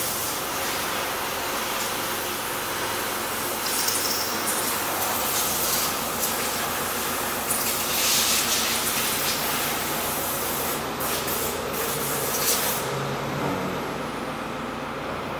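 Steady factory-floor machinery noise with a low hum, broken by three short bursts of hissing.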